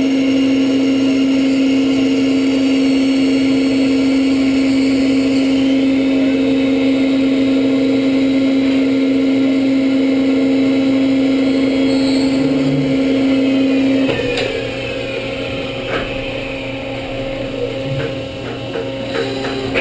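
DeHoff 218 four-spindle gundrilling machine running: a steady hum and whine while the gun drills cut. About fourteen seconds in, the main tone cuts out and the sound drops as the drilling stroke ends, with falling whines and a few sharp clicks near the end.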